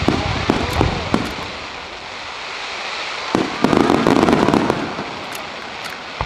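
Starmine fireworks going off: sharp bursts in quick succession in the first second, then a dense rapid barrage of reports about three and a half seconds in.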